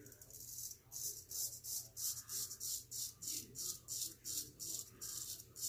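Straight razor scraping through three or four days' stubble in short, quick strokes, about three a second.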